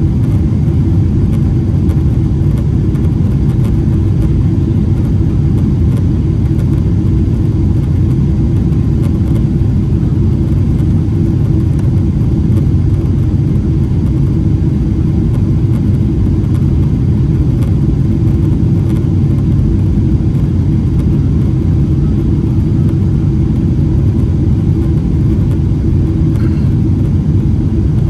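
Boeing 777-300ER's GE90 engines and rushing air heard as a steady, loud, low rumble with a faint even hum, unchanging throughout: the aircraft at high thrust after takeoff.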